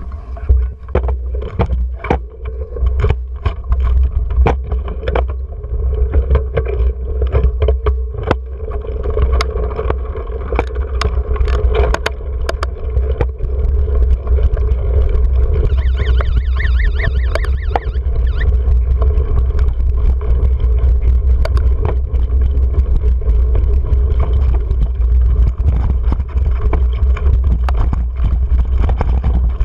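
Mountain bike ridden over a rough, rocky dirt trail, heard through a GoPro on the bike: a steady rumble of wind on the microphone, with sharp rattles and knocks from the bike jolting over the ground. The knocks are thickest in the first dozen seconds.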